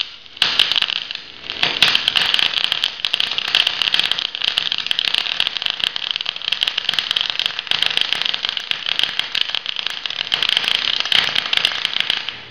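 MIG welder arc crackling steadily as a bead is laid with the heat turned up and a long wire stick-out. It starts about half a second in, breaks off briefly around a second and a half, and stops just before the end.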